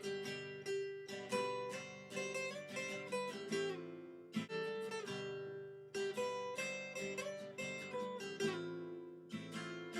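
Background music: acoustic guitar playing a plucked melody over strummed chords, with short pauses in the phrasing about four and nine seconds in.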